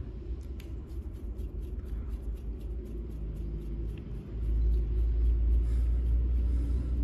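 Toyan FS-L200 two-cylinder four-stroke nitro model engine running with a steady low rumble, getting clearly louder about four seconds in.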